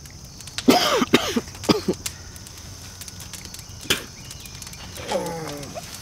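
A man coughing and groaning in pain: a few short strained coughs and groans about a second in, a sharp click near four seconds, and a longer falling groan near the end.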